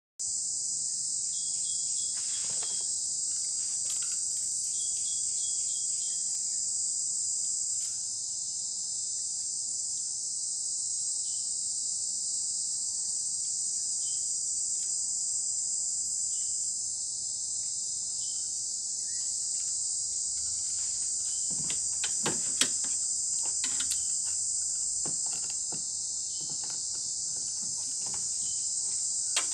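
Steady, high-pitched insect chorus that never lets up, with a few sharp clicks and knocks about three-quarters of the way through.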